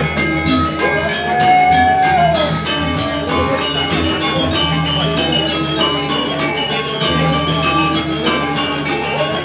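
Balinese gamelan playing: dense, ringing metallophone and gong strokes over a steady drum pulse. About a second in, a long held note slides up and back down over the ensemble.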